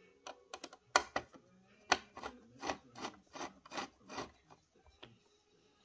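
Screwdriver driving a screw into the metal chassis of a cassette deck's tape transport. A few sharp clicks come first, then a run of short even strokes, nearly three a second, as the screw is turned in.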